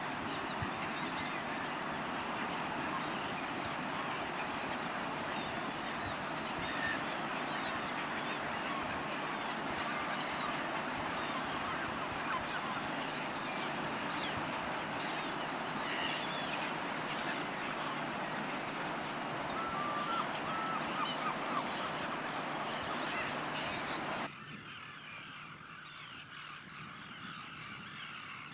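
A flock of great black-headed gulls (Pallas's gulls) calling, with many deep, goose-like calls overlapping in a dense din. About 24 seconds in, the sound drops abruptly to a quieter stretch with fewer, more scattered calls.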